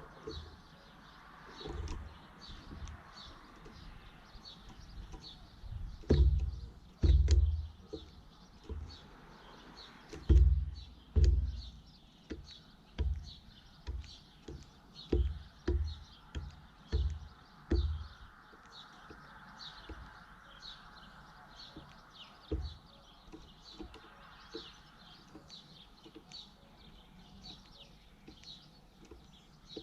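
Small birds chirping in a quick, steady run of short high notes, with a series of dull low thumps between about six and eighteen seconds in.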